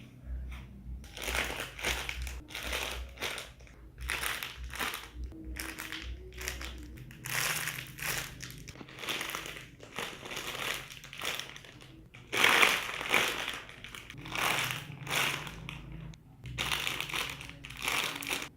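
Homemade squishy toys being squeezed over and over in the hand, each squeeze giving a crinkling rustle, about one or two a second, with the loudest squeeze a little past the middle.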